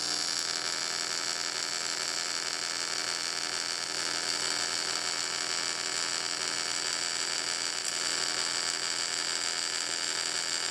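Steady, even buzz of an AC TIG welding arc at 140 amps on an aluminium fuel tank, welding over a leaking seam.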